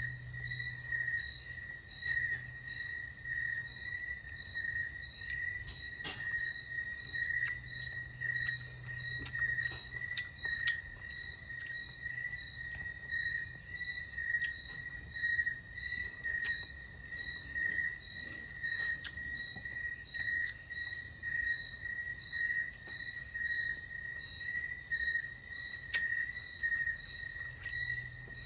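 Insects calling in the background, one steady high-pitched trill that pulses in an even rhythm without a break, the usual night chorus of farmland.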